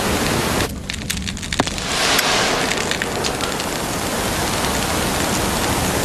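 Electronic static: crackling and clicking for the first two seconds, then a steady hiss, as a robot's damaged vision display breaks up.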